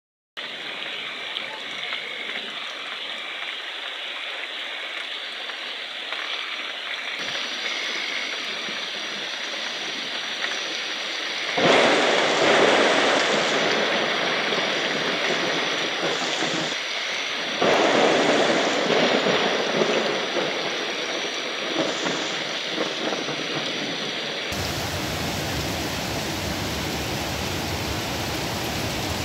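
Heavy rain falling, a steady hiss that swells louder twice in the middle. Near the end it changes abruptly to a fuller, deeper rain hiss.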